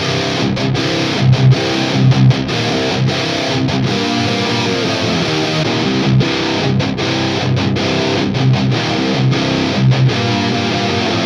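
Heavily distorted high-gain electric guitar riffing through a Mesa Boogie Dual Rectifier tube amp with 6L6 power tubes, heard through a 4x12 Rectifier-cabinet impulse response with Vintage 30 speakers. Stop-start chords and low chugs with short breaks between them, the breaks coming fastest in the middle.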